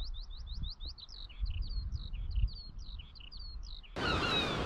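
Skylark singing overhead: a fast, unbroken stream of rising chirps and warbled trills, with a low wind rumble on the microphone. Near the end the sound cuts suddenly to a steady rush of noise with other, falling bird calls.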